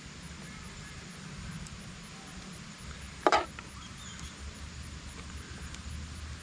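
A cooking utensil knocks once against the pan, a short sharp clack a little after three seconds in, while sauce is spread over the ravioli layer, over a steady low outdoor rumble.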